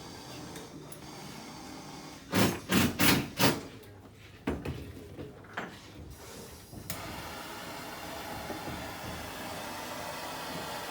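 Four loud, sharp knocks in quick succession, then a few lighter knocks and clatter, over a steady background hiss.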